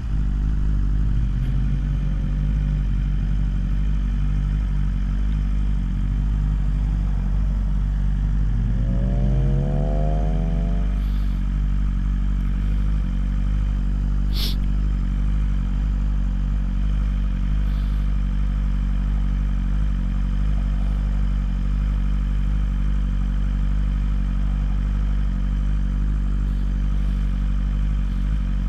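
BMW S1000RR's inline-four engine running at a steady cruise. About nine seconds in it climbs in pitch as the bike accelerates, then settles again. There is a single sharp click about halfway through.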